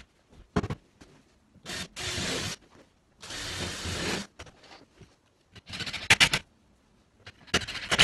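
Cordless drill run in several short bursts, each under a second, into the edge of an 18mm melamine-faced chipboard panel while joining the wardrobe carcass.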